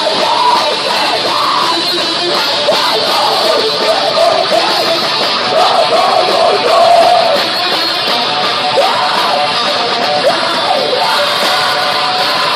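Heavy metal band playing live, with guitars and a yelled vocal over a dense, continuous wall of sound.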